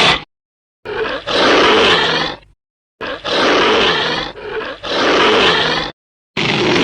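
Monster roar sound effects played in reverse: a string of harsh, loud roars, each about one to one and a half seconds long. Each one cuts off abruptly into dead silence before the next starts.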